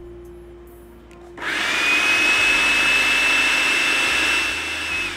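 Anex electric food chopper switched on about a second and a half in, its motor whining up to a steady high pitch as the blade grinds onion, green chillies, ginger, garlic and coriander into a green masala, then winding down near the end.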